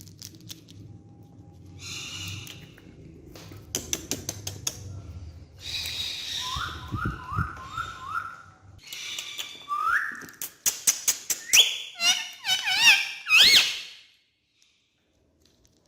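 Parrot calling: short rising whistled chirps in quick runs, mixed with squeaky calls and clicks. It builds to a string of loud warbling whistles that swoop up and down, then stops abruptly about two seconds before the end.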